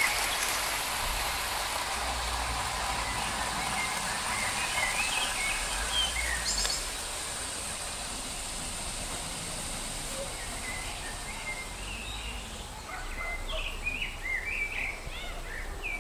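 Garden ambience: birds chirping, sparse at first and more frequent near the end, over a steady hiss that drops off about seven seconds in.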